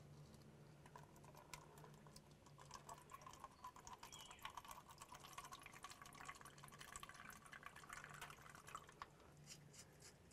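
Diesel fuel draining from the excavator's fuel-filter water separator into a small plastic cup: faint dripping and trickling with many small ticks, as the separator is drained to check for water and dirt.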